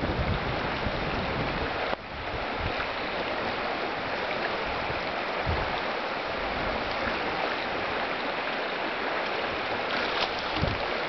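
Steady rush of a shallow river running over rocks, with a few faint low thumps.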